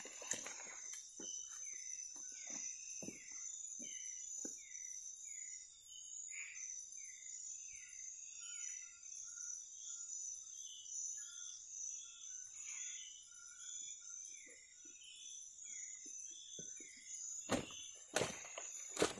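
Night rainforest insect chorus: a steady high-pitched drone with a run of short, repeated chirps over it. A few soft knocks come early, and louder knocks of handling or movement come near the end.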